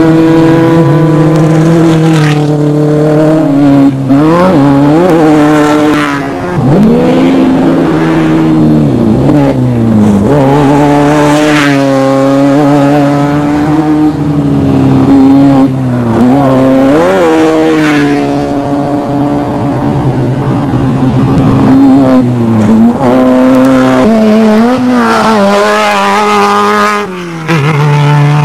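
Off-road desert race vehicle engine at high revs; its pitch repeatedly drops and climbs back as the throttle is lifted and reopened.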